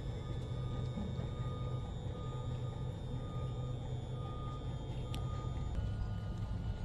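Short electronic beeps at one pitch, repeating at an even pace of about one a second over a steady low hum.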